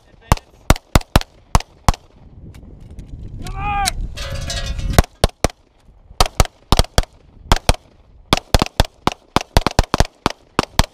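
Rapid 9 mm pistol fire from Glock pistols, about two dozen shots in quick strings, with several shots coming close together at times as more than one shooter fires. There is a pause of about three seconds a couple of seconds in, with a rising noise and a brief voice in it, before a fast run of shots resumes.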